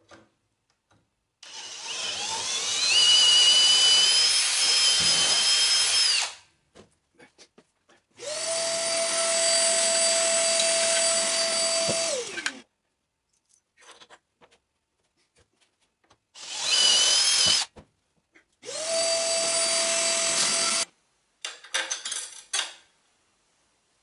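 Cordless drill running in four bursts of a few seconds each, stopping sharply each time; the motor whine climbs in pitch during the first and loudest run and holds steady in the others. A few light clicks and knocks follow near the end.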